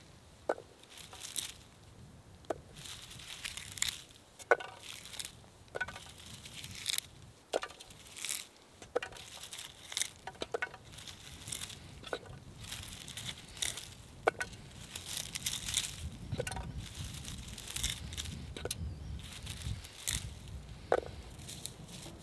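Hands rustling through low lingonberry shrubs while picking berries, with irregular light ticks, some with a brief ring, as berries drop into a small metal pot.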